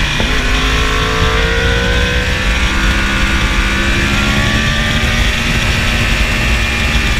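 2015 Yamaha R1's crossplane inline-four pulling through a gear, its revs rising steadily for about four seconds and then holding, under heavy wind rush on the camera.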